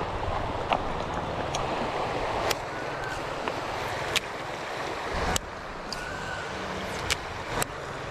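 Steady rush of a shallow river running over stones, with several sharp clacks of river cobbles underfoot as someone walks along the stony bank.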